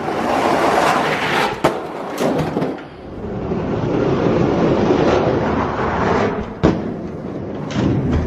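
Die-cast Hot Wheels monster trucks rolling down a gravity racing track, a steady rolling noise with a few sharp knocks as they hit the track.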